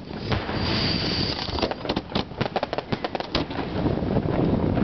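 Aerial fireworks bursting overhead: a hissing rush in the first second or so, then a rapid run of sharp crackling pops from crackling stars.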